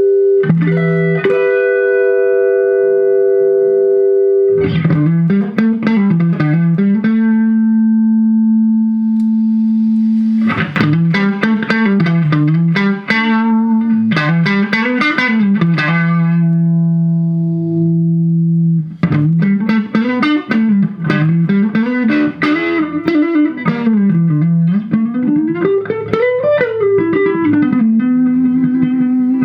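Electric guitar, a Fender American Deluxe Stratocaster, played through a compressor pedal into a Vox Pathfinder 15R amp: long held notes that sustain evenly, alternating with quick runs of notes climbing and falling in pitch.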